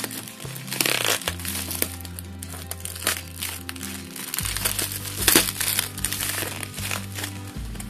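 Clear plastic bubble-wrap packet crinkling and crackling as it is handled and turned over, with background music of held low notes.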